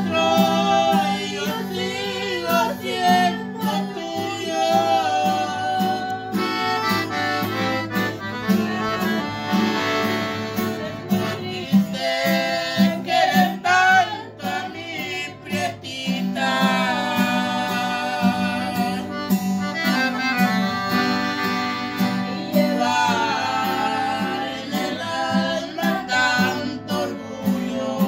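Piano accordion and strummed acoustic guitar playing a song together, the accordion's sustained reedy notes moving through a melody over the guitar's steady rhythm.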